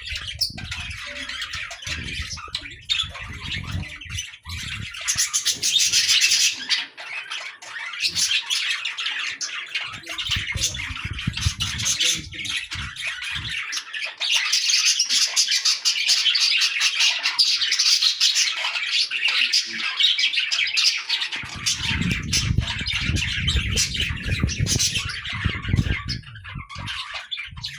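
A flock of small birds chirping and squawking in a dense, continuous chatter, busiest in the middle of the stretch. A low rumble runs under it at the start and again from about two thirds of the way through.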